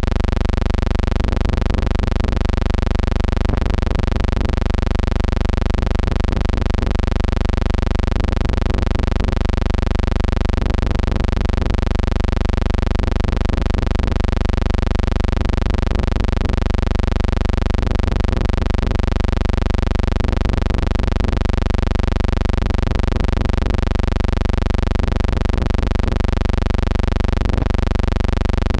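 Steady electrical hum with a dense stack of overtones, unchanging throughout.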